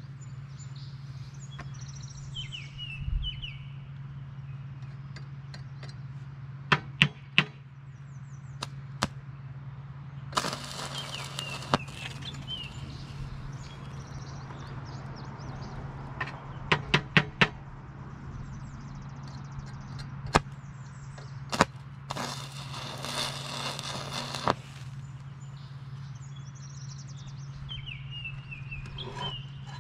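Arc welding on a cast iron skillet's broken handle joint: two short runs of arc crackle and hiss, each about two seconds long, one near the middle and one later on. Groups of sharp clicks come a few seconds before each run. A steady low hum runs underneath, and birds chirp now and then.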